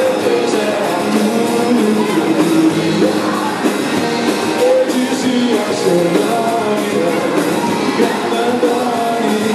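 Rock song played by a band, with singing.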